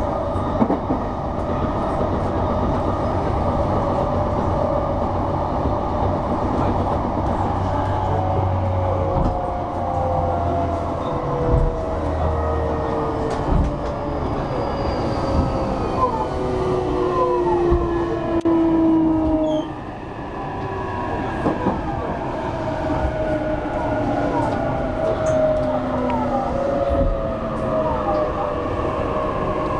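Cabin sound of a JR E233-3000 series electric commuter train under way: a steady rumble of wheels on rail. Over it run the whining tones of the drive motors, which slide in pitch and are strongest in the second half. The noise drops briefly about two-thirds of the way through.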